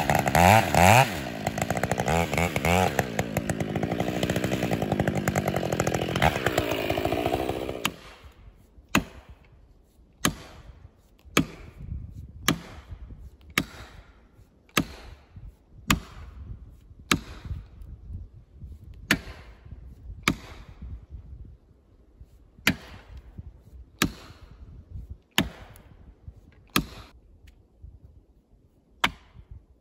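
Chainsaw cutting into a standing tree, its engine pitch swinging up and down, then it cuts off about eight seconds in. It is followed by a steady run of sharp blows, about one a second with a brief pause, as felling wedges are pounded into the cut to push the tree over.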